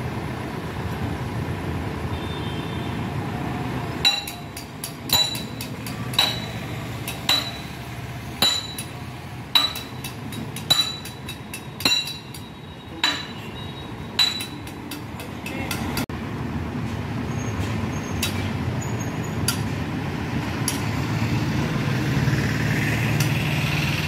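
Hammer blows on steel at the bucket pin joint of a CAT backhoe loader during bucket bushing work: about ten ringing metal strikes, roughly one a second, starting a few seconds in. An engine runs steadily underneath.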